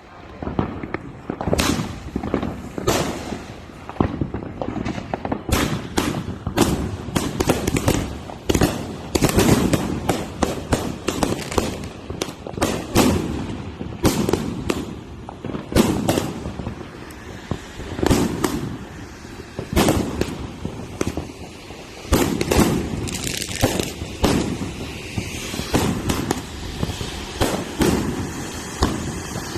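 Fireworks going off in quick, irregular succession: dozens of sharp bangs and crackles overlapping over a continuous low rumble.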